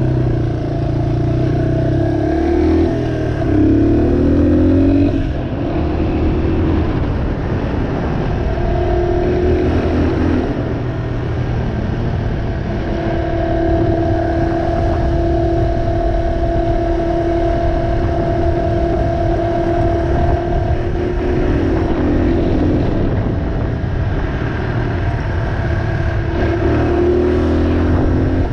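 2003 Yamaha XT225's single-cylinder four-stroke engine running under way, its revs rising and falling, with a long stretch at a steady pitch in the middle.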